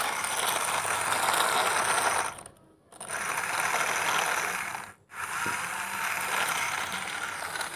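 Plastic toy dump truck's wheels and body rolling over gritty dirt, a steady scratchy rattle that breaks off briefly twice.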